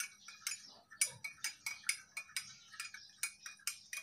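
Spoon stirring a drink in a glass, clinking against the sides about three to four times a second in an uneven rhythm.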